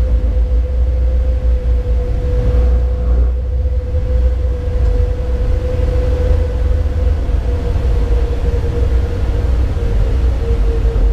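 Siemens ES64F4 (class 189) electric locomotive running, heard from its cab: a steady low rumble with a steady tone above it that sinks slightly in pitch near the end.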